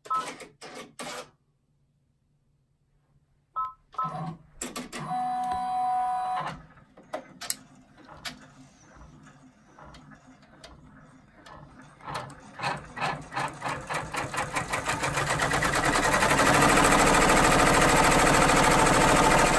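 Brother PR655 multi-needle embroidery machine starting its final run: a couple of short beeps and a brief motor whir, then stitching that begins slowly about twelve seconds in and speeds up to a fast, steady run.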